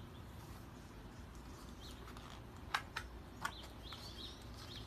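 Pages of a picture book being turned by hand: a few short papery rustles and snaps between about two and a half and three and a half seconds in. Faint bird chirps and a low steady hum lie underneath.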